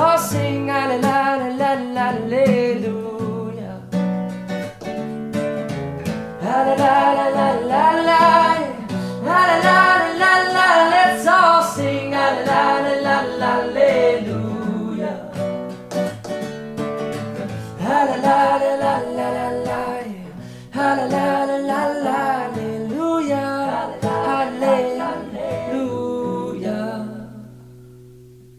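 Pop song with singing over acoustic guitar, fading out near the end.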